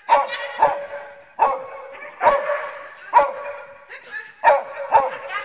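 A dog barking repeatedly, about seven sharp barks at irregular intervals of half a second to a second, echoing in a large hall.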